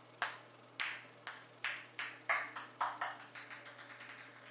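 A small hard ball bouncing on a tile floor: a sharp, ringing ping with each bounce, the bounces coming faster and fainter until they die out near the end.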